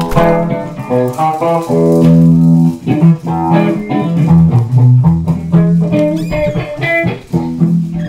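Background music: plucked guitar melody over a bass guitar line, with a note changing about every quarter to half second.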